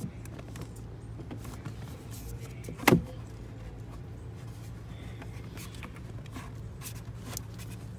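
Clicks and knocks of the evaporator core being pushed back into its plastic A/C housing under the dashboard, with one loud knock about three seconds in, over a steady low hum.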